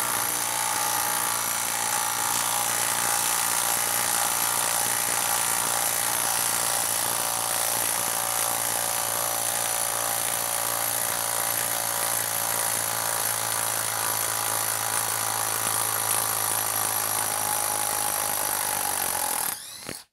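Hilti brushless cordless impact driver hammering without a break as it drives a 10-inch lag screw into a log stump, under heavy load, then cutting off suddenly near the end as the screw is driven home.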